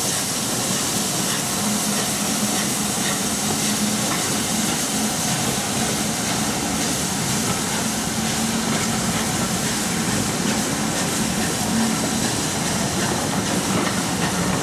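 Rebuilt Bulleid West Country class 4-6-2 steam locomotive pulling its train away, with a steady hiss of steam from around its cylinders as the coaches roll by.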